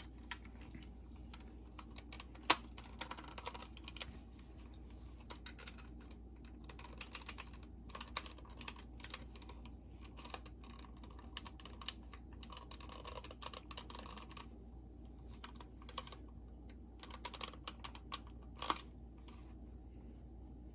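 Scattered small clicks and taps from hands and a small tool working on a cassette Walkman's contact, with a sharp click about two and a half seconds in and a few stretches of light scraping.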